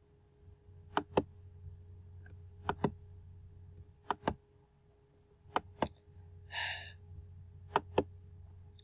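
Computer mouse button clicked in quick pairs, five double-clicks about every second and a half, as someone tries to dismiss a pop-up that won't close. A short sigh comes just after the middle.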